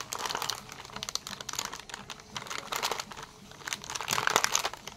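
A crinkly plastic packet being handled and crumpled in the hands: irregular crackling, loudest about four seconds in.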